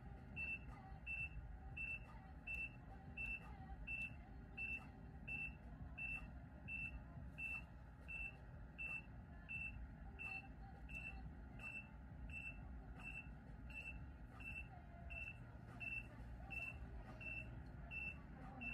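VeinGogh vein-treatment machine beeping with each automatic pulse of its needle probe: short high beeps at an even rate of nearly two a second, each with a faint click, while it fires in auto mode.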